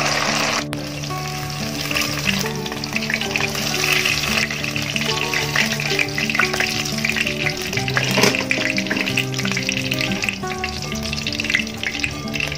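Marinated chicken pieces sizzling and crackling as they deep-fry in hot oil, being scooped out with a wire spider strainer near the end. Soft background music plays under the frying.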